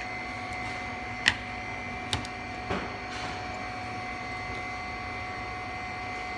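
Three short knocks, the first the sharpest, as the mold plate holding the LCD panel is handled and set down on the bench, over a steady background hum.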